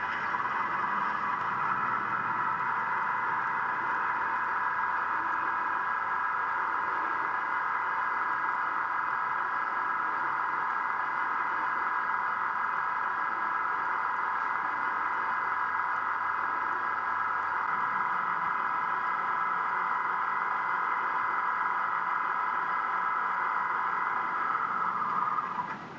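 Onboard sound of an Athearn HO-scale mechanical reefer model playing its refrigeration unit's diesel engine running steadily, thin and bass-less through the car's small speaker. It stops shortly before the end.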